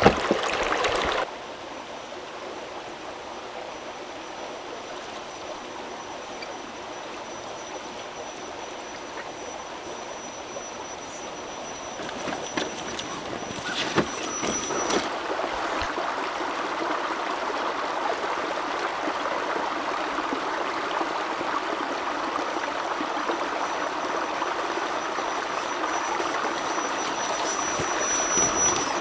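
Shallow stream running and splashing over rocks, loudest in the first second, then a steady rush that grows stronger about halfway through. A thin high tone comes and goes over it.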